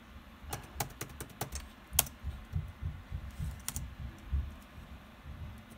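Keys pressed on a laptop keyboard: a string of scattered key clicks through the first four seconds, one louder than the rest about two seconds in.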